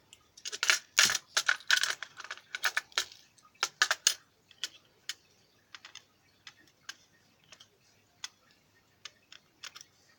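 Small metal lock parts clicking and tapping as the pins and pieces of a disassembled padlock are handled: a quick run of sharp clicks for the first four seconds, then scattered lighter ticks.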